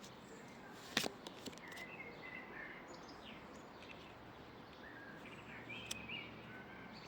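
Quiet background with faint, scattered bird chirps, and a sharp click about a second in followed by a few lighter clicks.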